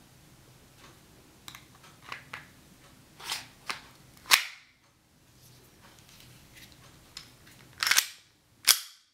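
Gas blowback airsoft pistol being handled: a few small clicks, then louder sharp clacks, one about four seconds in and two close together near the end.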